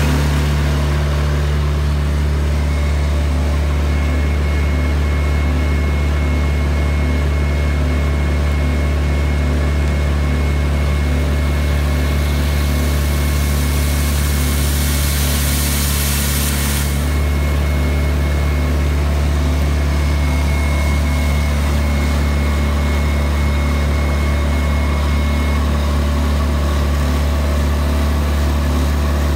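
Vermeer D16x20 Series II horizontal directional drill running steadily at high revs under its diesel engine, with a faint steady whine over it. For about five seconds around the middle, a hiss of drilling fluid spraying from the drill bit joins in.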